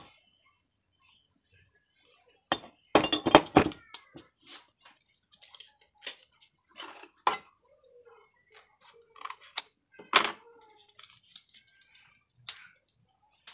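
Scattered clicks and knocks of hand work on a jackhammer armature, with a quick run of sharp knocks about three seconds in and single taps after it.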